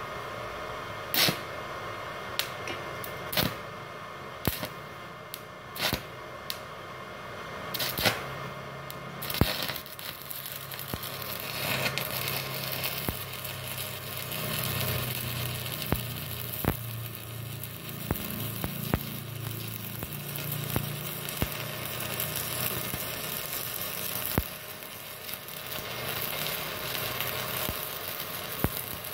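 Stick (SMAW) welding with a 2.6 mm electrode on a small 450-watt IGBT inverter welder: several sharp snaps as the rod is struck to start the arc, then from about a third of the way in a steady arc crackle and hiss that breaks off once a few seconds before the end and catches again. The 2.6 mm rod still burns well on this low-power machine.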